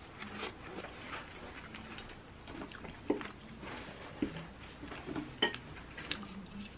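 Knife and fork clinking and scraping on a ceramic plate while a salmon steak is cut, with several separate sharp clinks spread through.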